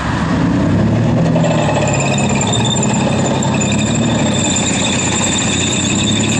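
Marder infantry fighting vehicles moving slowly past in a column: their diesel engines run with a low, slightly wavering note, and from about a second and a half in a high, steady squeal of the running gear and tracks joins it.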